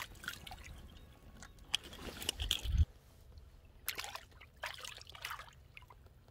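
Shallow seawater splashing and trickling in a few short bursts as a fish is let go by hand among rocks. A low rumble underneath stops about halfway through.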